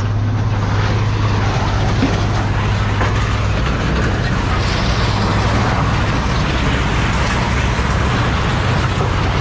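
A large engine running steadily, a constant low hum under a rushing noise, with no clear metal clanks standing out.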